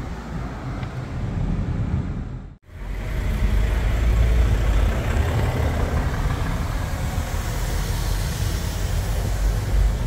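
Steady road and engine rumble of a Kia Carnival minivan driving, heard inside its cabin. It cuts out abruptly for a moment about two and a half seconds in, then carries on.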